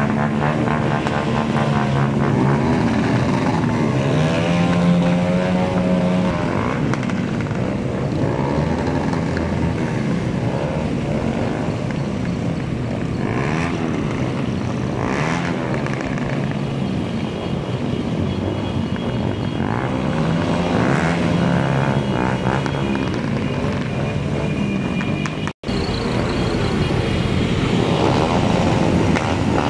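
Several motorcycles riding in a group, their engines running and revving up and down in pitch, with a brief cut in the sound about 25 seconds in.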